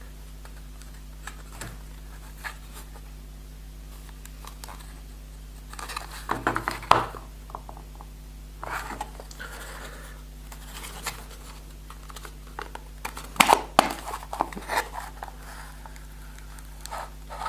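Hands handling and working at the catch of a small plastic watch box: scattered clicks, scrapes and rustles in a few clusters, about six seconds in and again around thirteen to fifteen seconds, over a steady low hum.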